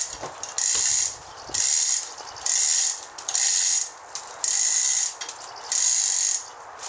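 Hand ratchet wrench worked in steady strokes on a bolt, giving about six runs of rapid clicking, roughly one a second, with short pauses between them.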